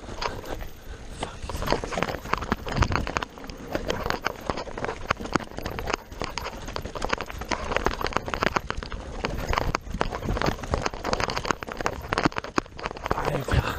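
Enduro mountain bike descending a rough, rocky dirt trail: the tyres crunch over stones and roots while the chain and frame rattle in a dense, irregular stream of clicks and knocks.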